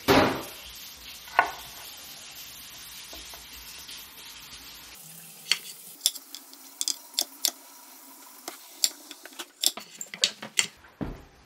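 A kitchen tap runs steadily for the first five seconds or so. Then a chef's knife cuts red potatoes into fries on an end-grain wooden board, making irregular sharp knocks through the second half.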